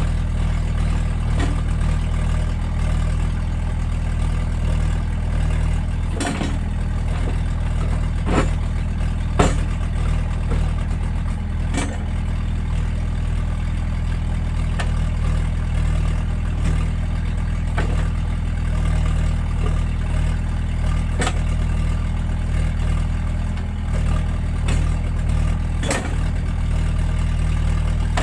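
Diesel engine of a Case CX75SR excavator running steadily, with sharp knocks now and then.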